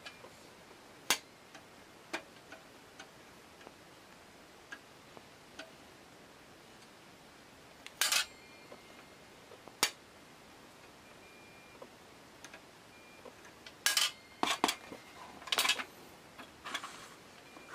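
Brass parts of an Optimus 1200M kerosene lantern being handled and fitted: scattered metallic clicks and clinks as the grip wheel is tightened and the lantern is put back together, with a quick run of louder clinks near the end.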